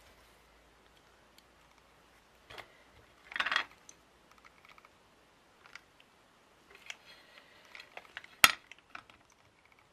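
Scattered small clicks and taps of hands handling a hot glue gun and beaded trim on a craft table, with a short scraping rustle about three and a half seconds in and one sharp knock, the loudest sound, about eight and a half seconds in.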